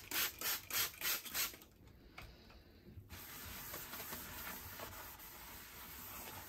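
A stainless steel kitchen sink being scrubbed by hand: quick back-and-forth strokes, about three a second, that stop about a second and a half in. After a short pause comes fainter, steady rubbing.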